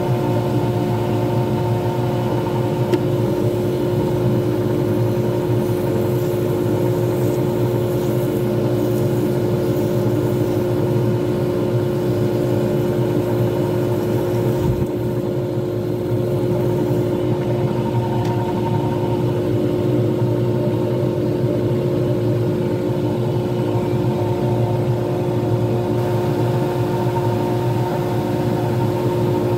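Lathe motor running steadily, spinning a resin pen blank during polishing: an even hum with a few steady tones.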